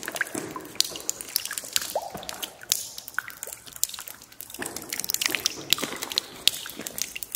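Water dripping onto a wet concrete tunnel floor: many separate drops at an irregular pace, some with a short plinking pitch.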